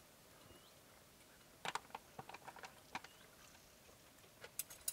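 Spoons clicking and scraping in freeze-dried meal pouches as two people eat: a few scattered light clicks, with a cluster of sharper ticks near the end.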